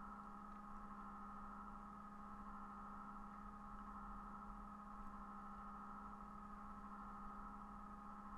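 Faint, steady electrical hum with a higher steady whine above it, unchanging throughout.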